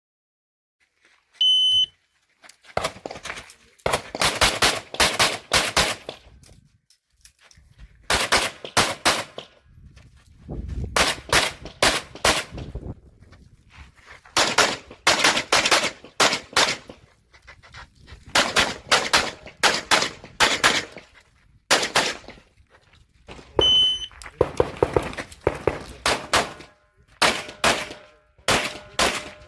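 Shot timer start beep, then a pistol fired in quick strings of several shots with short pauses between them, as in an action pistol course of fire. A second beep comes about 24 seconds in, followed by more strings of shots.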